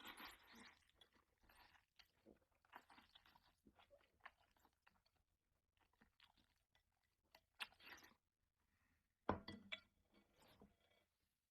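Faint close-up eating sounds of a person chewing noodles, in irregular bursts, loudest about nine seconds in.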